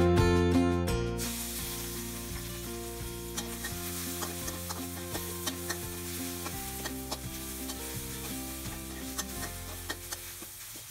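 Pounded chili and garlic sizzling in oil in a steel wok, stirred with a metal spatula that scrapes and clicks against the pan at irregular moments. Background music is loud at first and drops back about a second in.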